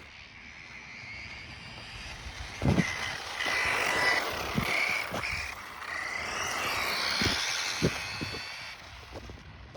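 Kyosho Raider electric RC car's motor and geared drivetrain whining as it is driven, the whine shifting in pitch, building up and fading away near the end. A few sharp knocks are heard along the way.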